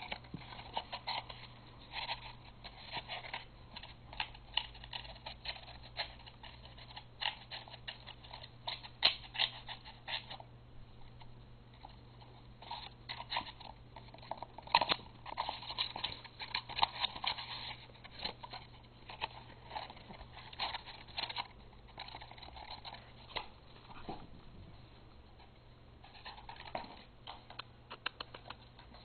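Papillon puppy chewing and biting a cardboard paper towel tube: irregular crackling and crunching of the cardboard in spells, with short pauses between them.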